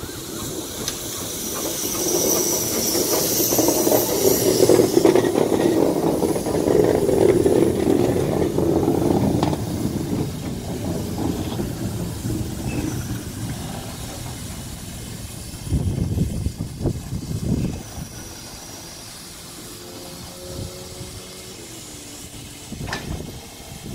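BR Standard Class 4MT 4-6-0 steam locomotive No. 75078 running light past close by, hissing steam. The noise builds over the first few seconds and eases as the engine draws away, with a short spell of sharp, rapid beats about two-thirds of the way through.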